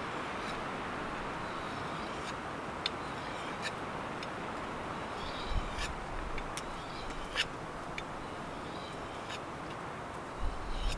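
Knife blade stroked across the coarse side of a handheld Fallkniven CC4 ceramic pocket stone: faint scraping with light, irregular ticks as the edge meets the stone, over a steady outdoor hiss. Faint bird calls in the background.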